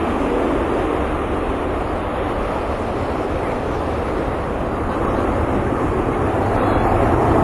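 Concorde's four Olympus 593 turbojet engines at takeoff power: a dense, steady rumbling jet noise that grows slightly louder over the second half.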